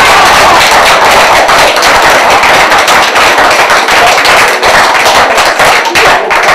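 A roomful of men laughing loudly together, with many sharp hand claps mixed in throughout.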